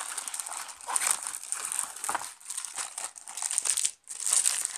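Packaging crinkling and rustling as it is handled, irregular and crackly, with a brief pause about four seconds in.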